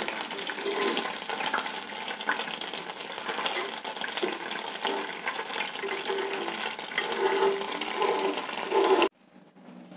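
Browned coconut milk solids sizzling and crackling in freshly separated coconut oil in a nonstick pan, stirred with a metal spoon; the fine crackle is the last water cooking out as the oil separates. It cuts off suddenly about nine seconds in.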